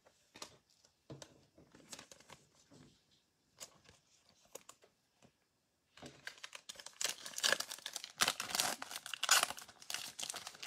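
Faint handling rustles and clicks. Then, from about six seconds in, a Mosaic baseball card pack's foil wrapper crinkles and tears as it is ripped open.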